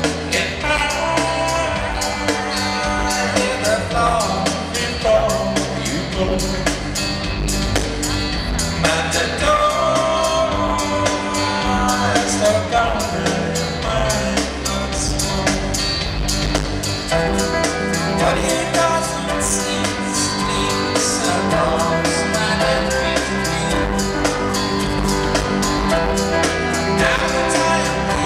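A rock band playing live in an arena, heard from the crowd: a male lead vocal sung over electric guitar, bass, keyboards and drums.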